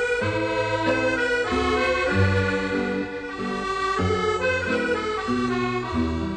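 Instrumental background music: a melody over a bass line that moves from note to note.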